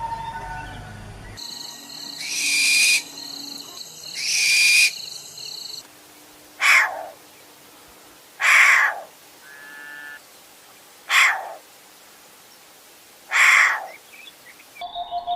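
A series of bird calls, with the recording cut twice. First come two long calls about two seconds apart. Then come four shorter calls spaced a couple of seconds apart, each one sliding down in pitch.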